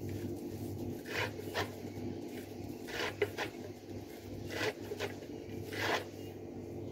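Knife cutting through a bunch of fresh green stems on a wooden cutting board: about six short, crisp cuts at uneven intervals, over a steady low hum.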